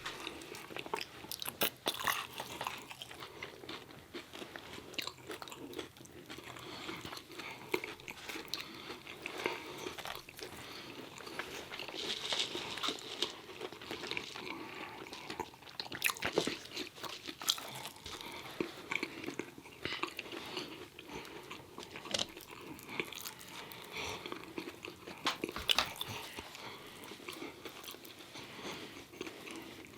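Close-miked eating: irregular crunchy bites and wet chewing of fried chicken tenders and fries.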